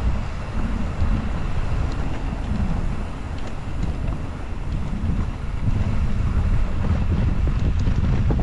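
Wind buffeting the microphone of a camera on a moving bicycle: a loud, steady low rumble with a fainter hiss above it.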